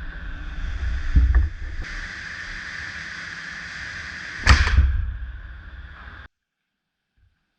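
Two heavy metallic clunks, about a second in and again past four seconds, as the crankshaft of a bare Iveco Cursor 13 engine block is turned over, over a steady high whine. The sound cuts off abruptly about six seconds in.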